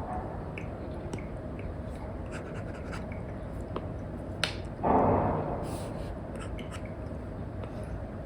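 Stylus tip tapping and scratching on an iPad's paper-like screen protector in small strokes and ticks over a steady hiss, with a sharp click and then a brief louder rustle about five seconds in.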